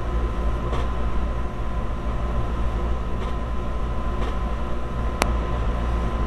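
Steady low rumble with a thin steady whine behind it. Over it come a few soft brushing strokes as a comb is drawn through a bundle of wavy human hair, and one sharp click about five seconds in.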